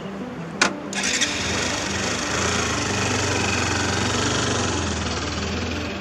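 Motorcycle engine starting: a sharp click, then the engine catches about a second in and runs steadily as the bike pulls away.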